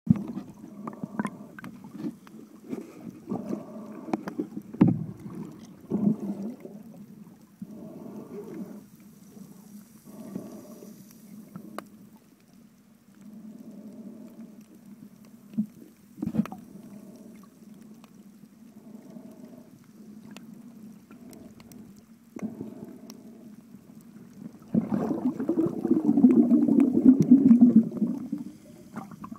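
Muffled underwater noise picked up by a phone held underwater while snorkelling: dull water movement and gurgling, swelling in short pulses every second or two. It grows louder and fuller near the end.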